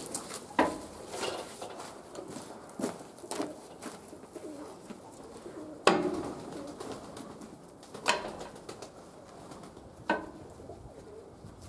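Domestic pigeons cooing, broken by a few sharp knocks and thumps, the loudest about six seconds in.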